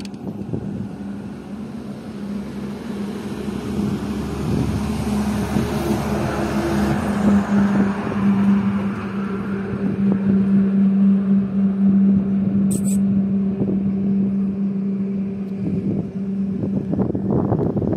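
Road traffic: a vehicle engine's steady hum with tyre and wind noise, growing louder a few seconds in and easing off near the end.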